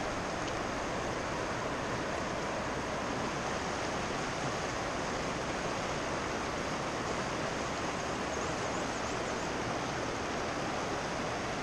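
Steady rush of a river's current, an even hiss that does not change.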